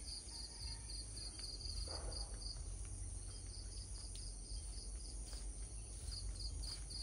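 Insects chirping, likely crickets: a rapid, even pulsed chirp at one high pitch, about four to five pulses a second, pausing briefly twice, over a steady high insect whine and a low rumble.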